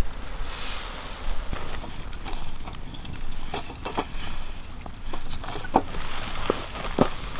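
A series of light, sharp clicks and knocks, irregular and coming more often in the second half, over a steady low rumble.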